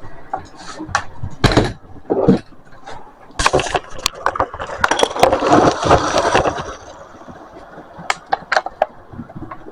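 Handling noise: a string of sharp clicks and knocks, with a stretch of rustling and crinkling from about three and a half to seven seconds in.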